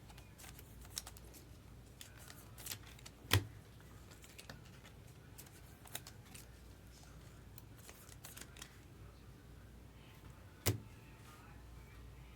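Baseball trading cards being handled and flipped through on a table: scattered light clicks and taps, with two sharper knocks, one a few seconds in and one near the end.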